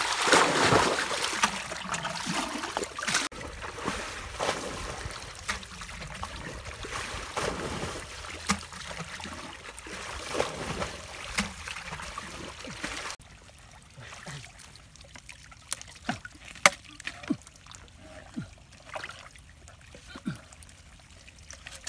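Splashing and sloshing in shallow muddy water and wet mud, loudest in the first few seconds. After about 13 s it drops to quieter wet squelches with scattered sharp little clicks.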